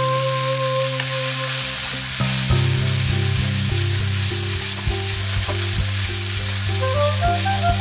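Mint leaves, shallots and green chilli sizzling in oil in a nonstick frying pan as they wilt, with a spatula stirring them in the second half. Background music plays over the sizzle: held notes at first, then a repeating pattern from about two and a half seconds in, with higher notes stepping along near the end.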